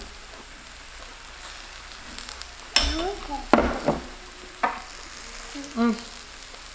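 Zucchini slices sizzling on a hot tabletop griddle, a steady hiss. A few sharp clicks come midway, along with brief snatches of a voice.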